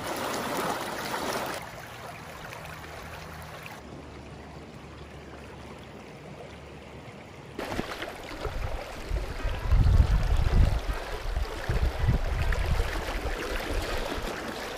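Creek water running over rocks and downed logs. About eight seconds in, the sound jumps to a closer, louder riffle, overlaid by heavy, irregular low rumbles buffeting the microphone.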